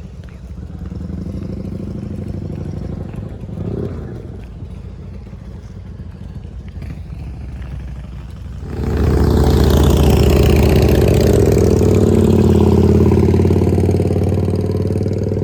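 A vehicle engine droning steadily, then much louder from about nine seconds in as it speeds up and holds at higher revs.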